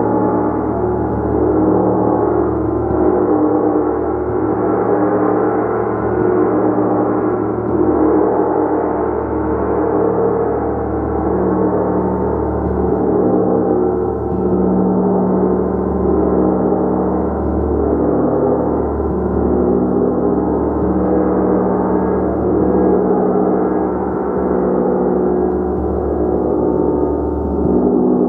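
Gong played continuously: a dense wash of many overlapping ringing tones that swells and eases every two to three seconds, with no sharp single strikes standing out.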